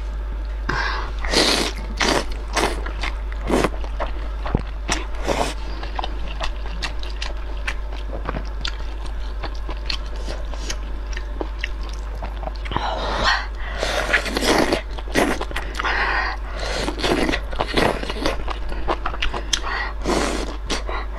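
Close-miked eating of noodles: wet chewing with many small mouth clicks, broken by several long slurps, the longest about thirteen to fifteen seconds in. A steady low hum lies underneath.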